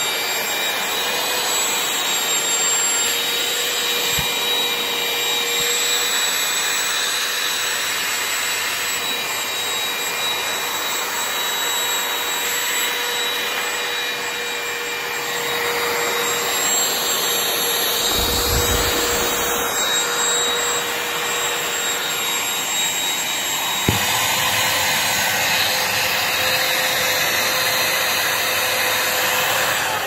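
Shark CH963AMZ cordless handheld vacuum running steadily, a high motor whine over rushing suction air. A brief low rumble comes about two-thirds of the way through, and a single sharp knock follows soon after.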